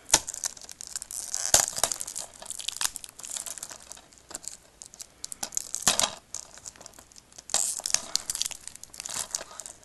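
Plastic shrink-wrap on a DVD case being picked at and pulled by fingers: irregular crinkling and tearing crackles with a few sharp clicks, loudest about a second and a half in and again around six and eight seconds.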